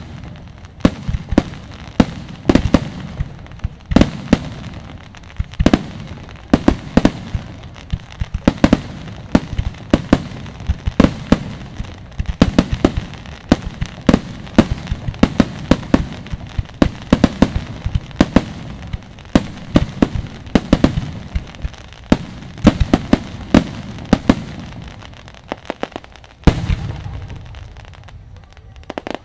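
Aerial fireworks going off in a rapid, unbroken volley: sharp bangs several times a second over a rolling low rumble, with a heavier, deeper boom near the end.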